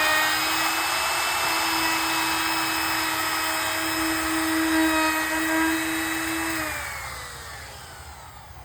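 Wood router with a 1/8-inch carbide roundover bit running at full speed with a steady high whine, routing the edge of a 1x6 board. About seven seconds in it is switched off and winds down, its pitch falling as it fades.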